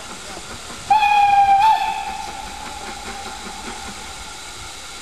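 Steam locomotive whistle: one short blast about a second in, stepping slightly up in pitch just before it stops, then dying away, over a steady hiss.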